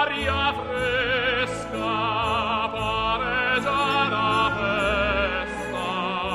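Background music in an operatic style: a melody of long notes sung with strong vibrato over orchestral accompaniment.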